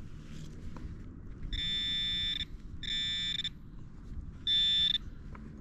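Metal detector sounding off on a buried target in a clump of dug soil: three buzzy, high electronic tones, a longer one of about a second followed by two shorter ones, the last the loudest.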